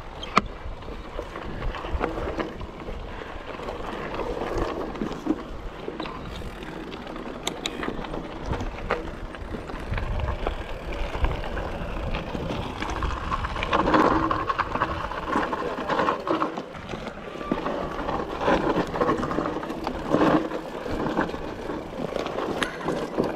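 Mountain bike rolling fast down a dirt forest singletrack: a steady rumble of knobbly tyres on dirt, with frequent clicks and rattles from the bike jolting over bumps and roots, busiest around the middle and again near the end.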